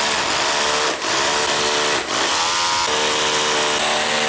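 Cordless hammer drill boring a bracket hole into a plastered wall, running at full speed with two brief dips about one and two seconds in.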